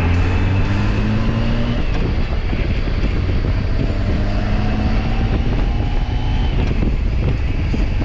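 Honda Gold Wing GL1800's flat-six engine running under way, its pitch climbing slowly in the middle as the bike gathers speed, under a steady rush of wind and road noise.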